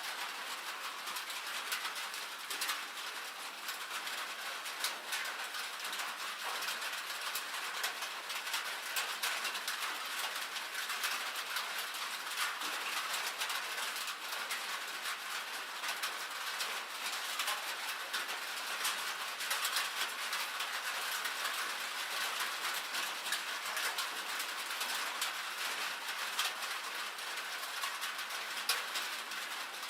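Rain and hail hitting a metal roof: a steady, dense hiss made of a great many small, sharp taps.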